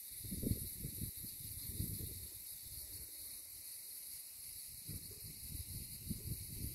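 A steady, high-pitched insect chorus, with low wind gusts buffeting the microphone, strongest about half a second in, around two seconds in and again near the end.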